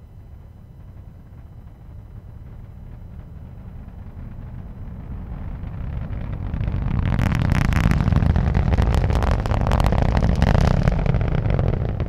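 Falcon 9 rocket's nine Merlin first-stage engines during ascent: a deep rumble that swells to full loudness about seven seconds in, with sharp crackling on top.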